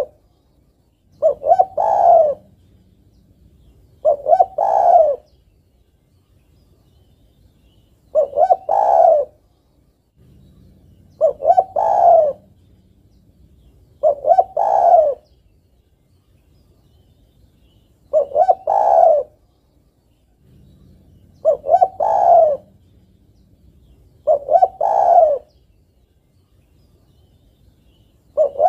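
Spotted dove (tekukur) cooing: a short, several-note coo phrase repeated about every three seconds, with a slightly longer pause after every few calls. It is given as a female calling to a male, the call used as a lure for trapping doves.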